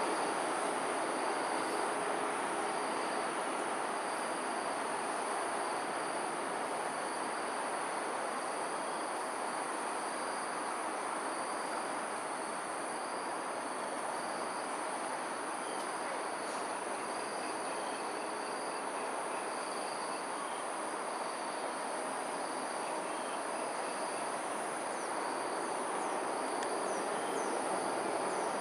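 Dusk insect chorus of several steady high-pitched drones, one of them pulsing, over a continuous distant city rumble. A few short high chirps come near the end.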